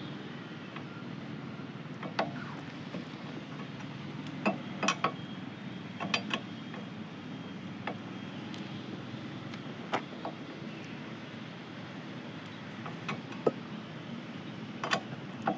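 Wheel nuts being tightened on a car wheel with a wheel spanner: scattered sharp metallic clicks and clinks, about a dozen in all, over a steady low background noise.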